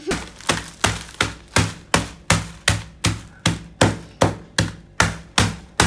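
Wooden mallet pounding biscuits in a plastic zip-lock bag on a table, crushing them. The strikes are sharp and evenly spaced, nearly three a second.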